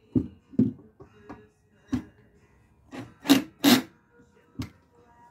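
Cordless drill run in short, uneven bursts while its bit is stuck in a wooden board, the bit grinding and catching in the wood; about nine bursts, the loudest two a little past three seconds in.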